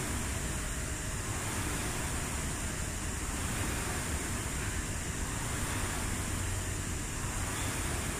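Air rowing machine's fan flywheel whirring steadily as it is rowed hard.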